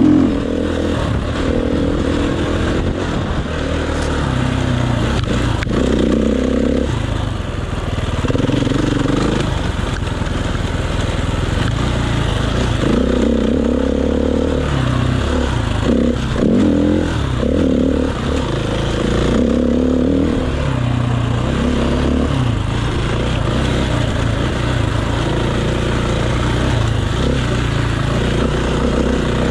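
Enduro dirt bike engine heard from the rider's chest, its revs rising and falling again and again as the throttle is worked, over a steady rush of noise.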